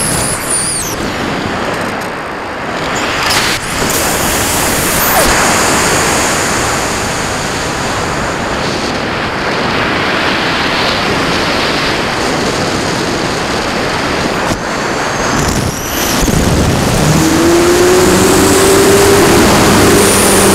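Loud wind rushing over the onboard camera's microphone as the Cularis motor glider glides with its motor off. About seventeen seconds in, its electric motor starts and the spinning propeller adds a steady hum that rises a little in pitch, then holds.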